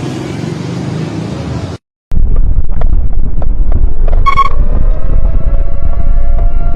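Loud wind buffeting on the microphone, over which a warning siren winds up, its pitch rising and then holding steady. A brief high beep sounds about halfway through, and before that a low hum cuts off abruptly.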